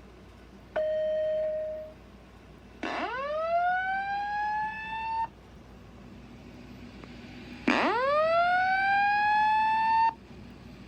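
System Sensor SPSR fire alarm speaker strobe playing its evacuation alert tone: a short steady beep, then two rising whoop sweeps, each climbing for about two and a half seconds before cutting off. This is the alert tone that leads into the recorded voice evacuation message.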